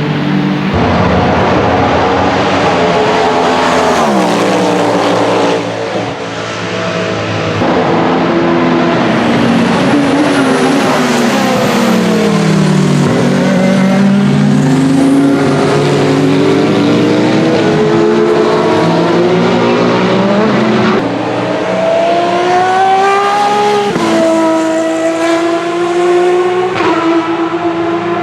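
Hypercar prototype racing engines passing at speed, several cars at once. Their pitch falls as they brake and downshift, then climbs again under acceleration, with quick upshifts near the end.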